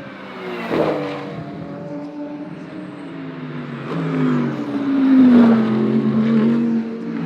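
GT3 race cars passing at speed, their engines at high revs with the pitch falling as each goes by; the loudest pass comes about five seconds in. There is a short sharp crack about a second in.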